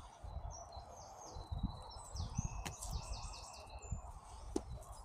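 A small songbird singing a short run of high, quickly repeated warbling phrases, faint, over a low rumble.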